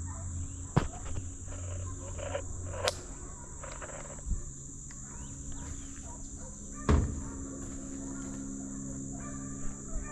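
Hunting hounds giving tongue in the distance as they strike a deer trail, with a steady high insect drone and a few sharp knocks, the loudest about seven seconds in.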